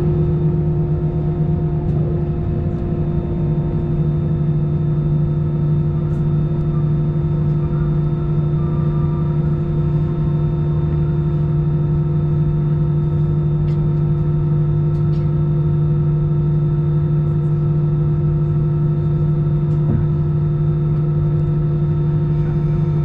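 Steady hum with a constant low drone inside the cabin of an Airbus A319 parked at the gate, the sound of the aircraft's air-conditioning and onboard systems running.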